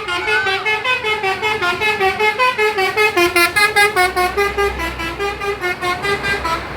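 Telolet horn: a multi-tone vehicle air horn playing a quick warbling tune, its notes stepping up and down several times a second. The low rumble of a vehicle engine joins about four seconds in.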